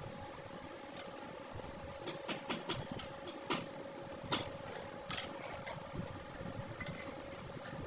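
Irregular sharp clicks and knocks, with the loudest about five seconds in, over a steady machine hum.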